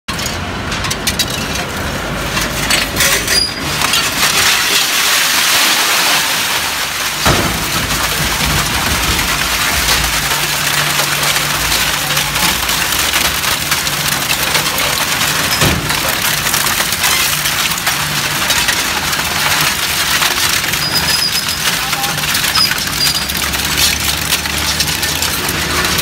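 Twin-shaft scrap metal shredder tearing and crushing scrap metal strips between its hooked cutter discs: a continuous loud din of metal cracking, grinding and clattering, with a low hum underneath.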